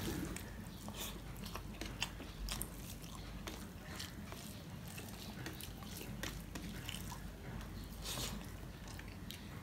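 Fingers mixing rice with curry on a steel plate, quiet squishing with many small scattered clicks, then a handful taken into the mouth near the end and chewed.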